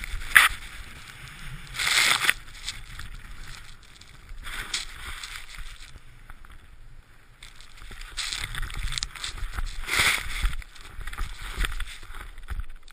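Skis or board cutting through deep powder snow: a swishing surge of snow spray with each turn, every one to three seconds, over wind rumbling on the microphone.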